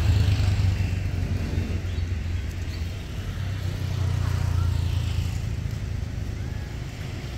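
Low rumble of road traffic, swelling as vehicles pass near the start and again about four seconds in.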